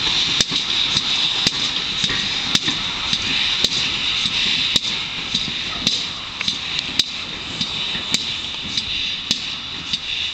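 Collett GWR 2884-class 2-8-0 steam locomotive 3803 moving off, its exhaust beating steadily over a hiss, with a sharp click about once a second. The sound fades as the engine draws away.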